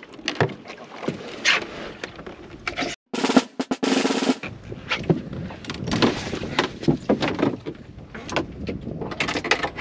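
Fishing reel clicking and rattling in quick succession as a hooked fish is played. The sound cuts out briefly about three seconds in.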